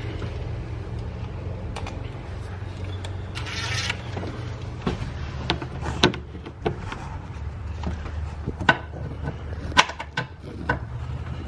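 Scattered sharp clicks and knocks of a cordless ratchet and its socket being handled and fitted onto a bracket bolt among metal engine-bay parts, with a short hissing rustle about three and a half seconds in, over a steady low hum.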